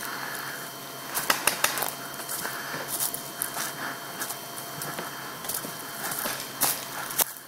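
Footsteps on a forest floor of dry leaves and twigs, walking at an uneven pace, with irregular crackling and snapping clicks, a few sharper snaps about a second and a half in.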